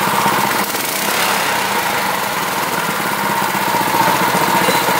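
New 200cc single-cylinder four-stroke small engine, just pull-started, running steadily on its own.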